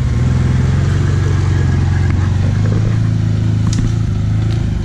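An all-terrain vehicle engine running close by, a steady low hum whose pitch shifts a little partway through, with a few light ticks near the end.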